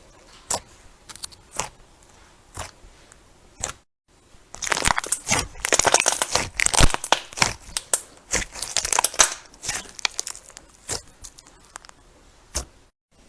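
Crunchy slime being squeezed and pressed by hand, giving crackling and popping sounds. There are scattered single pops at first, a dense run of crackling for several seconds in the middle, then scattered pops again.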